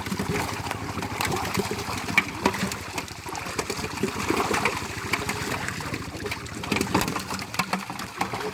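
A small engine running steadily, with water splashing.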